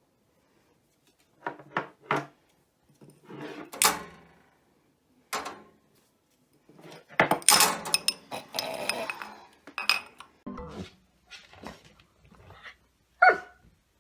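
A dog barking in short, scattered bouts, mixed with knocks and clatter of household objects; a short pitched bark or yelp comes near the end.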